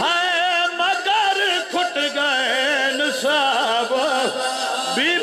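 A man's voice wailing a mournful lament in long, wavering sung phrases with a heavy tremble.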